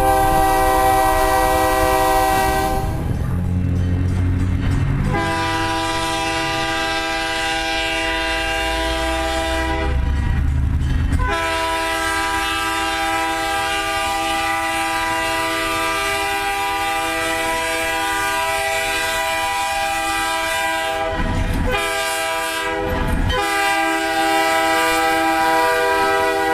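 Diesel locomotive's multi-chime air horn sounding long, held blasts of a several-note chord, with short breaks between them. A low rumble comes through in the gaps.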